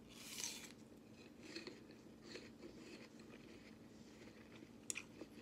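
Biting into a crisp raw apple slice, with a loud crunch about half a second in, then soft crunchy chewing and a few sharper crunches near the end.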